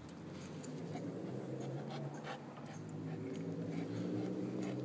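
Chow Chow dog whining low and steadily, growing slightly louder, with a few faint clicks.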